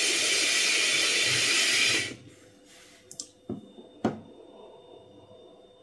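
Long draw on a Vaporesso Luxe XR pod vape fired at 60 watts: a steady, close hiss of air pulled through the pod and coil for about two seconds, then it cuts off. A fainter breath-out of vapour follows, with a few small clicks.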